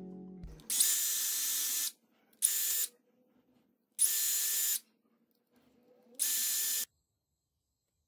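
A small high-speed electric motor running in four short bursts, each starting and stopping abruptly. Background music fades out just before the first burst.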